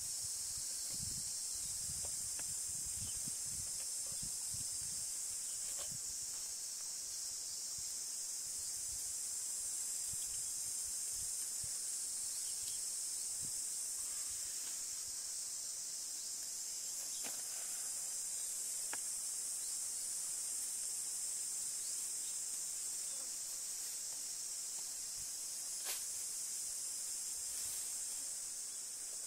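Steady high-pitched insect chorus droning without pause, with a few faint knocks and rustles underneath.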